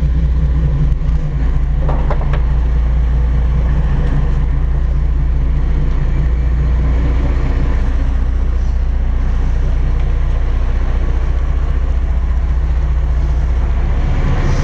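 Twin Cummins QSC 600 hp marine diesel engines driving Hamilton water-jet pumps, running with a steady, even low drone.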